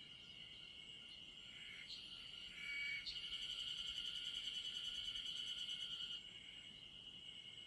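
Chorus of singing insects making a steady high trill. About three seconds in, a closer insect joins with a louder, fast-pulsing trill that stops abruptly about three seconds later.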